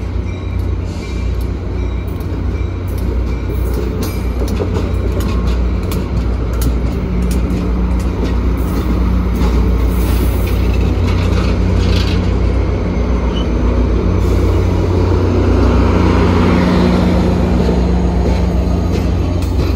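Caltrain passenger train rolling past: the bilevel cars rumble by with clicking wheels, and the diesel locomotive's engine hum grows louder toward the end as the locomotive comes alongside.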